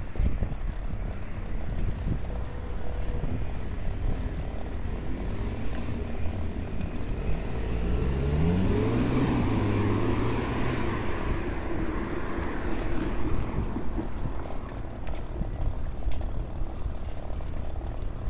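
Road traffic noise beside a multi-lane road, with a car passing close by about halfway through: its engine and tyre noise swell and its pitch rises and then falls as it goes by. A low rumble of wind on the microphone sits under it.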